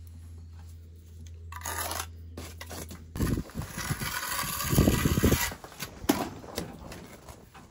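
Steel trowel scraping squeezed-out mortar off the joint of a freshly laid brick, a run of gritty scraping strokes, loudest about five seconds in. A low steady hum stops about three seconds in.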